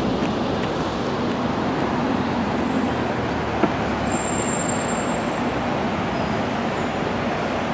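Steady city road traffic noise from passing cars and buses, with a brief thin high squeak a little past the middle.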